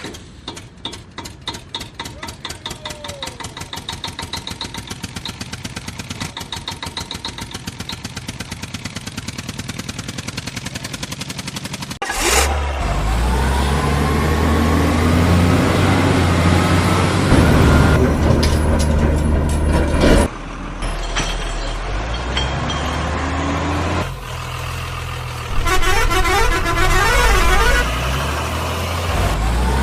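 Truck sounds: a fast, even rattling engine idle, then a sudden loud truck engine running about twelve seconds in, with a horn honking near the end.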